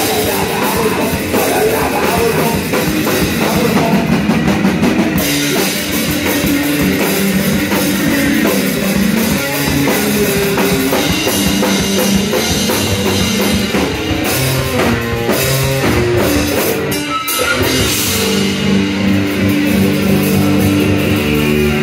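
Punk rock band playing live and loud: electric guitars and a pounding drum kit, with no vocals. About seventeen seconds in the playing breaks off briefly, then comes back as held, ringing guitar chords.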